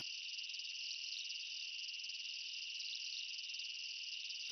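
Night-time insect chorus, crickets' kind: a steady, high-pitched trill that never breaks.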